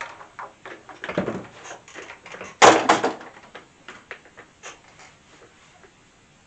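Irregular knocks and clatters of hard objects being handled, the loudest a clatter about two and a half seconds in.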